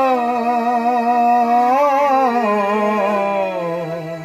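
A man singing one long drawn-out note of a Bengali folk-style song, no words, only a held vowel; about two and a half seconds in the pitch slides slowly down, and the note fades near the end.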